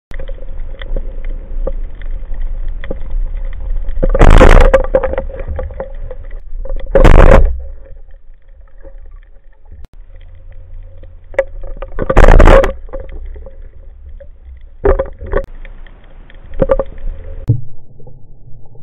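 Underwater sound, heard as a steady low hum with scattered faint clicks. Three loud rushing bursts come a few seconds apart, and a few sharper knocks follow later.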